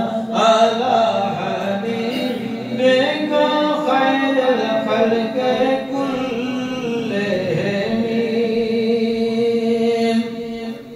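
A man chanting an Arabic devotional qasida, unaccompanied and amplified through a microphone, in a melismatic line that ends on a long held note stopping about ten seconds in.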